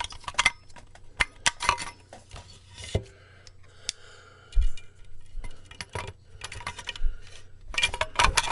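Irregular clicks, clinks and knocks as the circuit board of an Orange Micro Terror amplifier head is worked into its metal case by hand, with a dull thump about four and a half seconds in.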